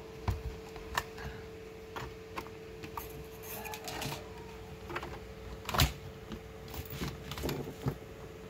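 Irregular light clicks and taps from handling a papercraft rifle, with the loudest knock about two thirds of the way through, over a steady low hum.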